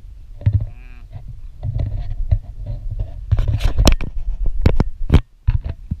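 Rumbling wind and handling noise on a hand-held camera's microphone, with repeated knocks and rubbing against it. A short sheep bleat comes about a second in.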